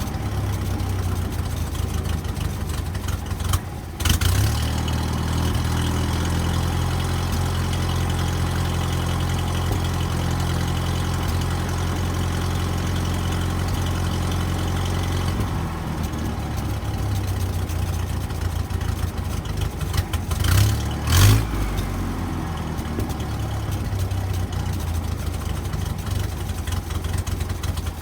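1970 International Scout 800 engine running steadily at idle through a newly fitted muffler, being tested for exhaust leaks. It surges briefly about four seconds in and revs twice, shortly, around twenty seconds in.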